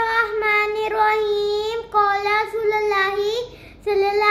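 A young girl's voice singing in long held notes: two sustained phrases with a short breath between them, and a third phrase beginning near the end.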